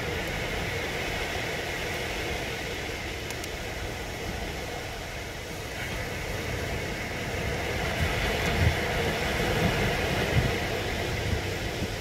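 Sea waves breaking and washing up the beach: a steady rushing surf, with gusts of wind buffeting the microphone in the second half.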